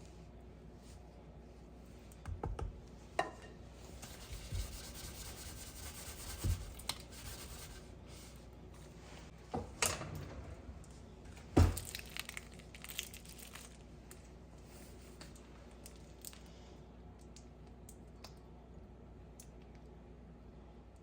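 Rustling and crinkling with several light knocks, bunched in the first two-thirds.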